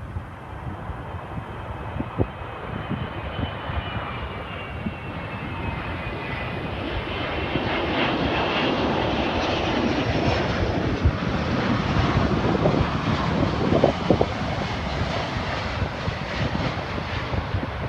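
Jet airliner passing by, its engine whine sliding down in pitch as the sound swells to its loudest around the middle, with wind buffeting the microphone throughout.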